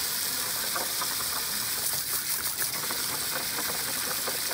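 Steady gush of water spraying into a plastic water table, with splashing as a dog snaps at the stream.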